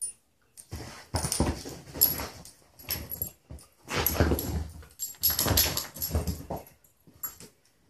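Two beagles play-fighting on a couch: several bursts of dog play noises and scuffling on the cushions, with short pauses between them.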